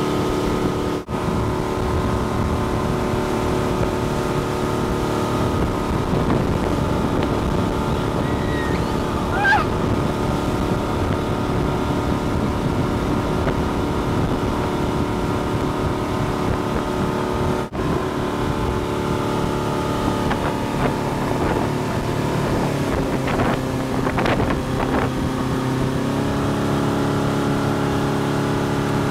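Motorboat engine running steadily at speed while towing a tube, over the rush of water and wind. Near the end the engine note drops in two steps as the boat eases off.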